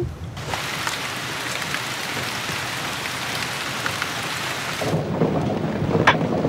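Steady hiss of heavily falling water that starts abruptly and cuts off sharply after about four and a half seconds. It gives way to a duller, lower rush with a sharp click about a second later.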